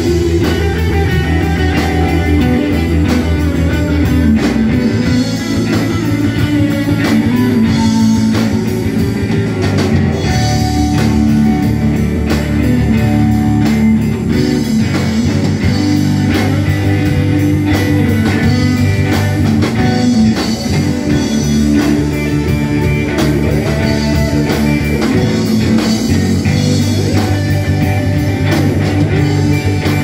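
Live rock band playing amplified electric guitars, electric bass guitar and a drum kit, with steady bass notes under a driving drum beat.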